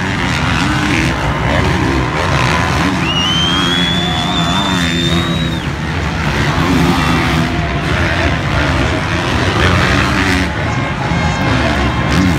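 Motocross bike engines revving up and down as riders race around the dirt track, loud throughout, with a high steady whine from about three to six seconds in.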